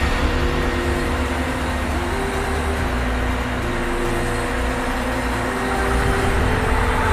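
Truck engine running steadily to drive a truck-mounted knuckle-boom crane's hydraulics, a deep rumble with a steady hydraulic whine whose tones shift and come and go as the crane moves.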